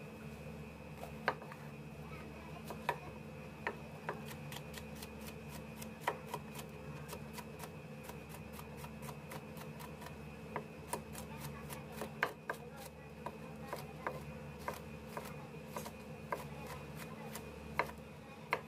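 Chef's knife slicing a green bell pepper into strips on a plastic cutting board. Sharp knife taps against the board come scattered at first, then in a faster run of strokes through the middle. A steady background hum runs underneath.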